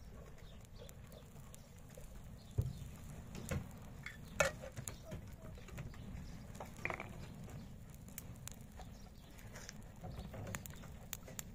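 Scattered light knocks and clicks over a steady low rumble, the sharpest about four and a half seconds in, with a short higher-pitched sound a little after the middle.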